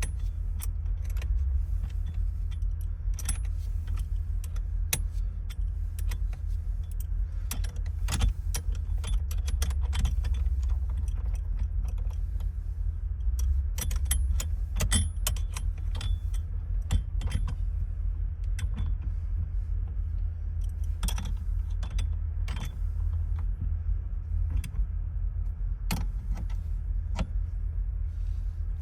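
Irregular metallic clicks, clinks and jingles of hand tools, small parts and keys being handled while a 1993 Yukon's steering column is taken apart for an ignition replacement, over a steady low rumble.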